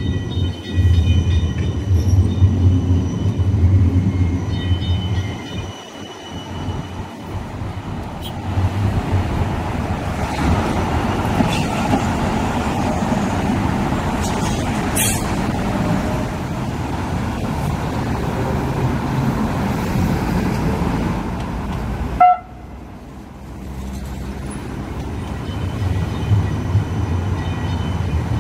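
Supercapacitor trams running on street track: one pulls away from the platform with a steady high electric whine over a low hum, then another rolls in over the rails, with a short sharp click about halfway through. The sound drops suddenly about three quarters of the way in, then tram running noise builds again.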